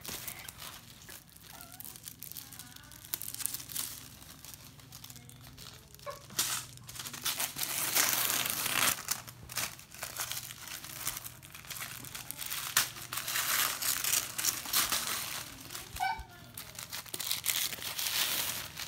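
Shiny gold gift wrap crinkling and being torn open around a book, in irregular rustling bursts that are loudest about halfway through and again near the end.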